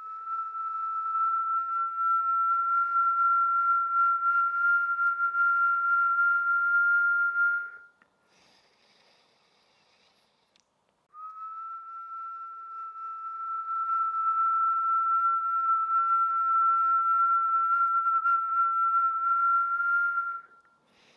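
A person whistling a long, steady note through pursed lips on a slow exhale, held about nine seconds with the pitch creeping slightly upward. After a quiet pause of about three seconds, a second long whistled exhale follows and stops just before the end.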